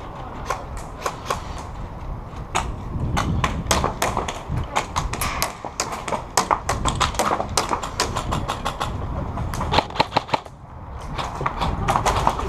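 Airsoft guns firing: strings of sharp snapping shots in quick succession, densest through the middle, with some thuds.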